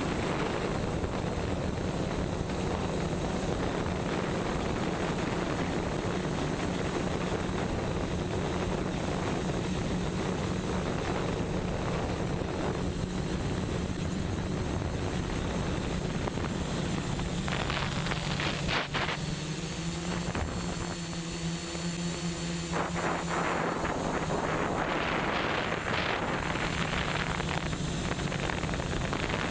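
An octocopter's eight brushless motors spinning 10-inch propellers in flight, heard from the camera on board: a steady droning hum with a thin high whine and a rushing hiss. About two-thirds of the way through the hum dips in pitch and the hiss thins for a few seconds, then both come back.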